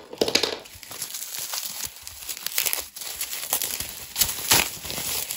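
Clear plastic wrapping crinkling and crackling in irregular bursts as it is pulled open by hand, with the sharpest crackle near the end.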